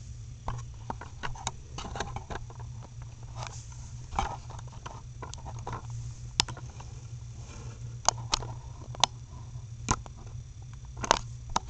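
Scattered light taps and clicks from handling the camera and the plastic K'nex figure, a few sharper clicks standing out, over a steady low hum.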